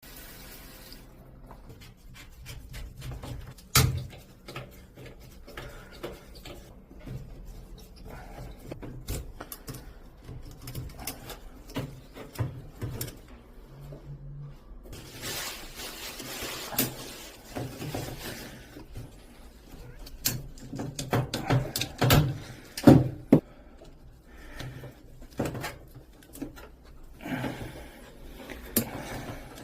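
Scattered knocks, clicks and clatter of hands and tools working on a drum washing machine, with a sharp knock about four seconds in and a cluster of louder knocks past the middle. A stretch of hissing noise runs for a few seconds around the middle.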